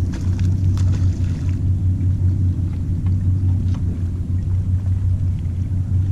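Steady low rumble, with a few faint short ticks in the first second and a half.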